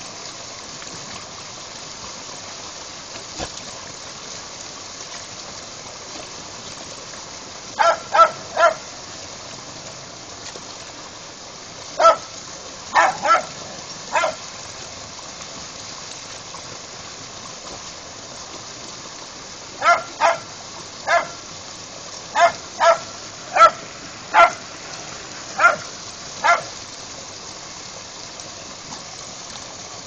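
A dog barking in short, high-pitched yaps, in three bursts of several barks each, over the steady rush of storm-drain water gushing from a pipe into a rocky stream.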